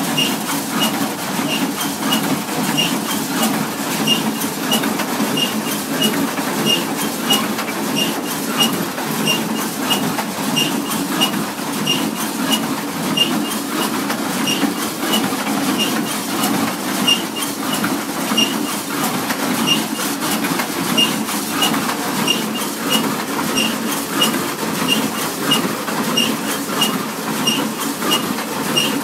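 International 430 small square baler running, its mechanism clacking steadily over a low drone, with a sharp high click repeating about twice a second.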